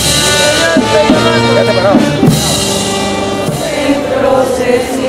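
Procession band music with drums and sustained chords that change every second or so, with a voice singing a wavering line over it.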